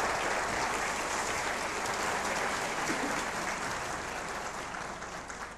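Audience applauding, the applause gradually dying away near the end.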